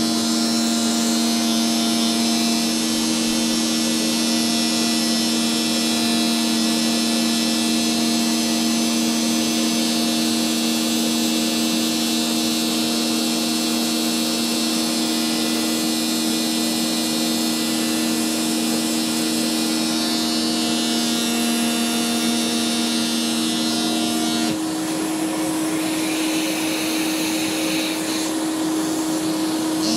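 Vacuum cleaner motor running steadily through a Flowbee hair-cutting attachment, a constant whooshing hum with a couple of held tones; one tone drops away about 24 seconds in.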